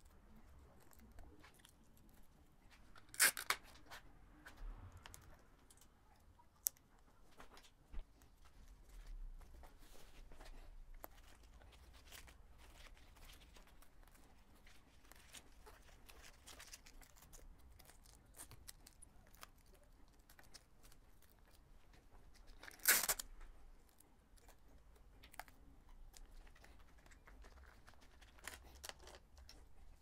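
Adhesive-backed handlebar tape being wrapped onto drop bars, with its backing film peeled off in two short loud rips, one a few seconds in and another about twenty seconds later. Between them, faint rustling, crinkling and small clicks as the tape is stretched and wound around the bar.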